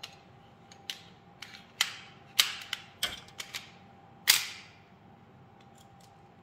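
Metal slide and frame of a gas-blowback airsoft pistol clicking and clacking as the slide is fitted back onto the frame rails: a string of sharp metallic clicks, the loudest about four seconds in.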